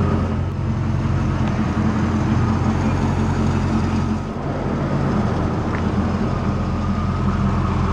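2001 Chevrolet Camaro Z28's 5.7-litre V8 idling steadily.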